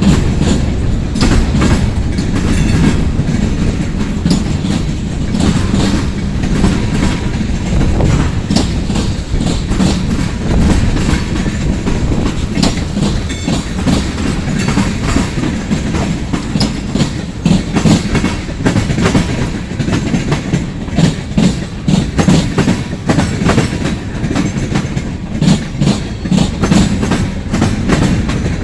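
Freight cars rolling past with a steady rumble, their steel wheels clicking over rail joints in quick, irregular clacks.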